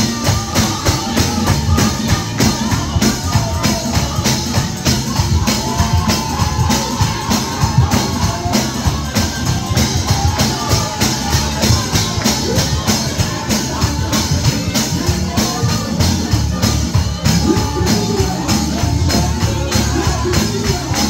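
Live gospel song with a steady fast beat from tambourine and drums, and a singer's wavering melody over the band.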